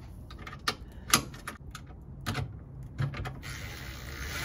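A few sharp metallic clicks and taps of tools on the skid plate's centre bolt, then, from about three and a half seconds in, a cordless impact driver starts up and spins the bolt in with a steady whir.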